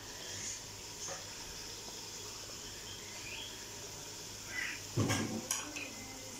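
Chicken pieces frying in oil in an aluminium pressure cooker, a steady low sizzle. A metal ladle clinks lightly against the pot about a second in and knocks and scrapes against it more loudly about five seconds in.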